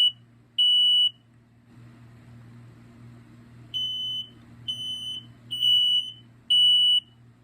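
Smoke alarm piezo horns sounding on test: a high, shrill beep about once a second. The beeping stops about a second in and starts again a few seconds later, the first beeps quieter, then at full loudness.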